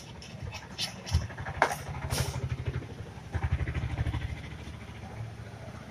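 A small engine idling in the background with a low, even pulsing that grows stronger twice. It is joined by a few sharp scrapes and knocks as the metal frame of a 12-inch speaker is handled and wiped.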